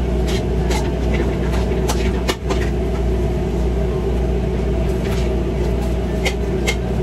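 Steady mechanical drone of a food truck kitchen's equipment, with scattered sharp metal clinks of a ladle against a wok during stir-frying over a gas burner.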